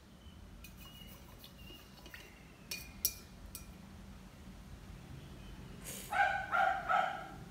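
A small dog barking three times in quick succession near the end, after a few light clinks about three seconds in.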